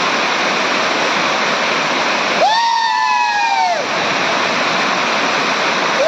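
Waterfall rushing in a steady, loud roar of falling water. Near the middle, a drawn-out high-pitched call rises slightly, then falls away, lasting about a second and a half.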